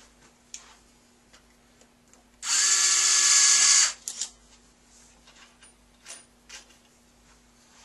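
Cordless surgical power drill running once for about a second and a half at a steady pitch, driving a fixation pin through the femoral cutting jig into a sawbone femur.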